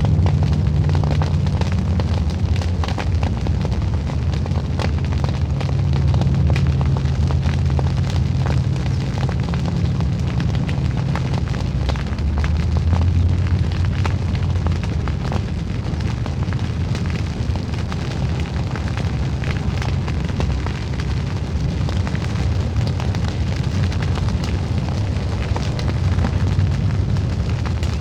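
Field fire burning: dense crackling from burning stubble over a steady low roar of flames.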